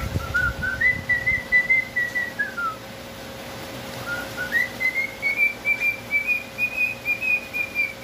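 A man whistling toward a caged cockatiel to get it to copy him: two long, wavering whistled phrases, the first dropping away at its end, the second climbing and held higher.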